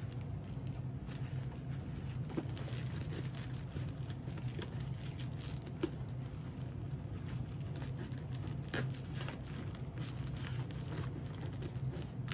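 Rustling and crinkling of wrapped toiletries such as panty liners being handled and packed into a toiletry bag's pocket, with scattered small clicks and taps. A steady low hum runs underneath.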